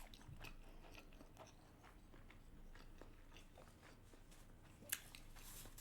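Faint chewing of salmon sushi: soft, irregular mouth clicks and squelches, with one sharper click about five seconds in.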